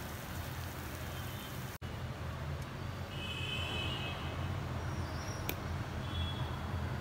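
Steady low kitchen hum with a hiss over it while a pan cooks on the stove, broken by a brief dropout nearly two seconds in; a few faint high chirps come through in the second half.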